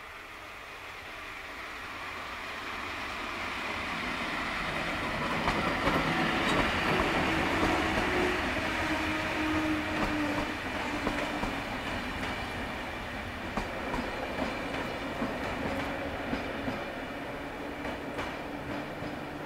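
Intercity passenger train hauled by an EP07 electric locomotive approaching and passing: a rumble that grows steadily louder with a steady hum from the locomotive, then the wheels clicking over rail joints as the coaches roll by and it eases off a little.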